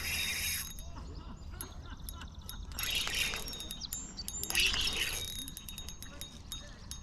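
A fishing reel clicking as it is wound, with a few short louder rushes of noise near the start, about three seconds in and about four and a half seconds in.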